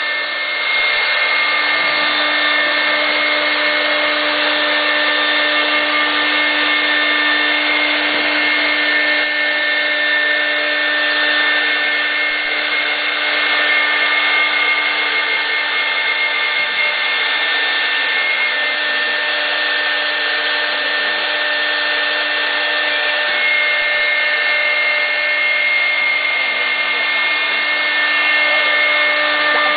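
CNC wood router spindle running under load, its bit cutting a groove into a solid wood panel: a steady machine whine with several held tones over continuous cutting noise.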